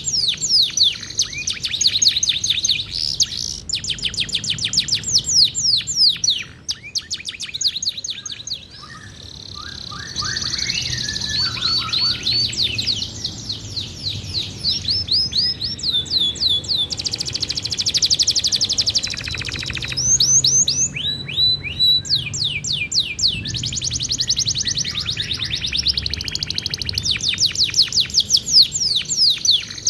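Domestic canary singing a long, varied song of rapid trilled rolls, each note a quick downward sweep. There is a brief lull about a third of the way in and a buzzy rattle past the middle.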